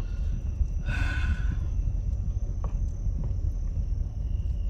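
Steady low rumble inside a car's cabin, with a person's short breathy exhale about a second in and a faint click a little later.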